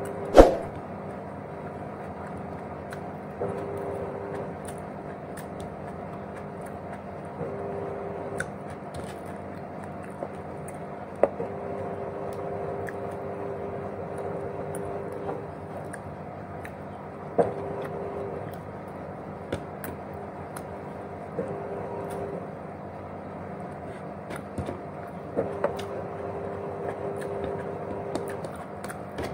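Sharp clicks of a utensil or dish, a loud one about half a second in and a few more later, over a steady background hum while someone eats.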